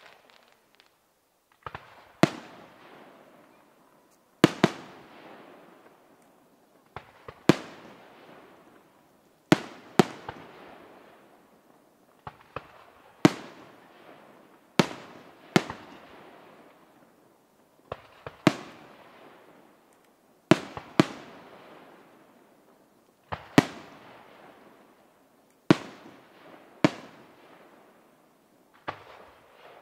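Fireworks display: aerial shells going off in a sharp bang every one to three seconds, each bang trailing off in a fading echo.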